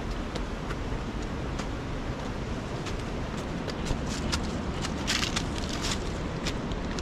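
Footsteps crunching and clicking on loose stones and rock along a steep gully path, thickest a few seconds in, over a steady rumble of wind on the microphone.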